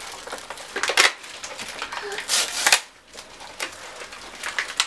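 Gift wrapping paper and packaging rustling and tearing in irregular crinkly bursts, loudest about a second in and again around two and a half seconds in.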